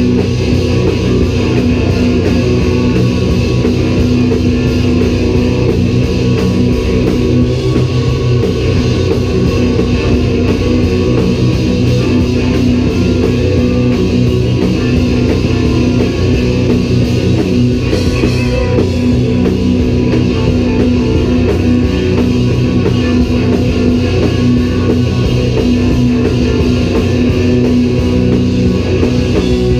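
Rock band playing live: electric guitars, bass guitar and drum kit, loud and continuous, with a heavy low end.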